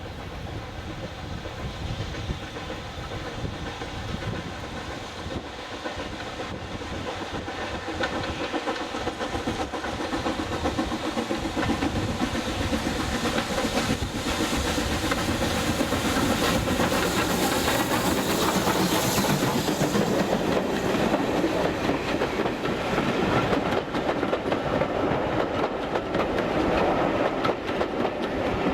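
Steam train hauled by BR Standard Class 4MT 4-6-0 locomotive 75014 drawing nearer, wheels clattering over the rails and growing steadily louder.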